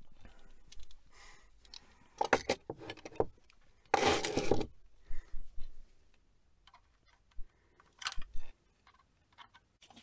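Hand tools working on house wiring: pliers cutting the wires free of a crimp-style wire connector, heard as scattered small metallic clicks and snips, with a louder rustling scrape lasting under a second about four seconds in.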